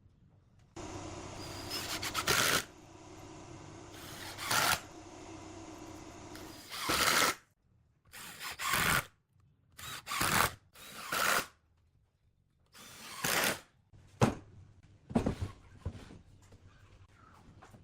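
A handheld power drill runs steadily for several seconds, then in a series of short bursts, each well under a second long. A few sharp knocks follow near the end.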